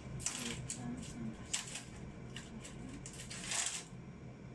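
A few short rustling, handling noises, like paper or objects being moved about, with the longest and loudest near the end.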